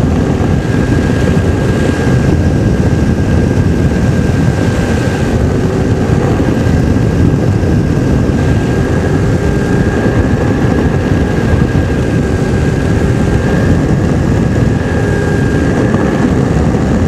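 Ultralight airplane's two-stroke engine and propeller running steadily in flight, with heavy wind rush. A steady whine sits over the noise, wavering slightly in pitch.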